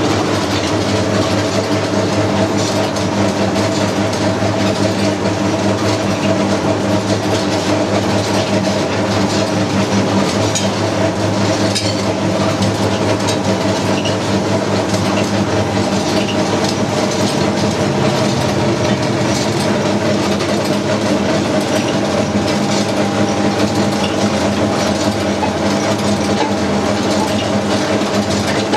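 Naswar tobacco grinding machine running steadily: a continuous mechanical hum with a light clatter.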